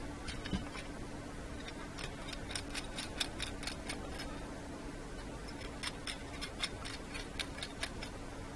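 Light, sharp metallic clicks from a small hand ratchet being worked on, coming in two quick irregular runs, about two seconds in and again near six seconds, over a faint steady hum.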